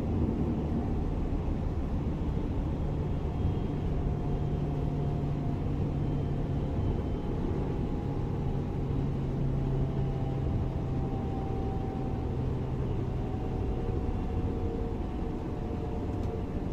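Class 425 electric multiple unit running: a steady rumble with a low hum from the traction drive that sinks slightly in pitch partway through, and faint higher whines above it.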